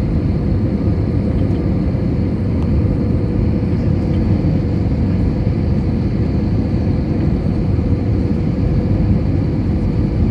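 Airbus A320 landing, heard from inside the cabin: a loud, steady rumble with a faint steady hum.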